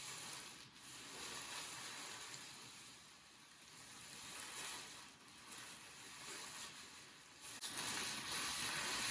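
Tissue paper rubbed on a table and crunched, a soft swishing, crinkling hiss that swells and fades, made to imitate wind and rustling leaves. It gets louder near the end.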